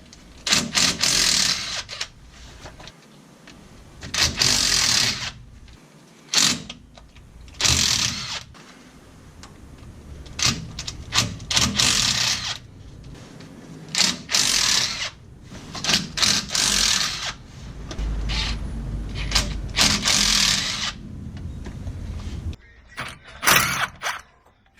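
Milwaukee M18 Fuel 3/8-inch cordless impact wrench hammering on fasteners in about ten short bursts, each a second or so long, with pauses between.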